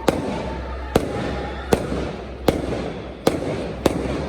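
Fireworks display: a string of loud, sharp bangs about one a second, over continuous crackling.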